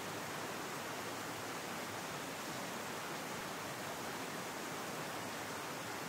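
A mountain stream running: an even, unbroken rush of water.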